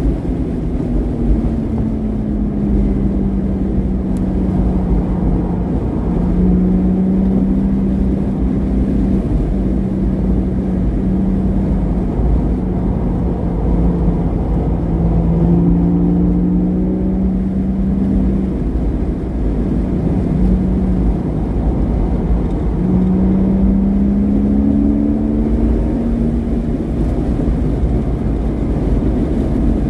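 Porsche Boxster S flat-six engine with a modified exhaust running hard on track. Its pitch drifts up and down with the throttle and breaks off briefly several times, over a heavy steady rumble.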